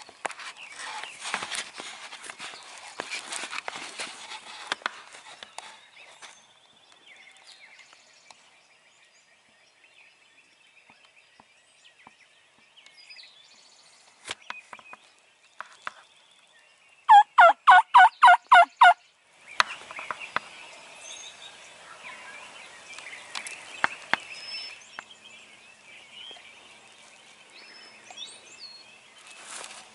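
A run of seven loud hen-turkey yelps, about four a second and each dropping in pitch, blown on a turkey call. Songbirds sing faintly behind, and there is rustling in the first few seconds.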